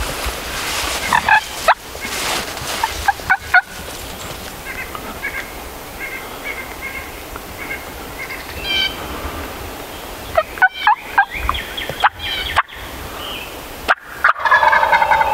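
Wild turkey gobbler gobbling at close range, several times: a gobble about a second in, more around ten to twelve seconds, and another near the end, with fainter short calls between.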